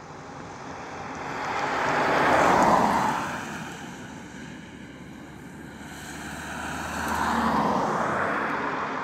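Two road vehicles passing close by one after the other, each a rush of tyre and engine noise that swells and fades: the first loudest about two and a half seconds in, the second near the end.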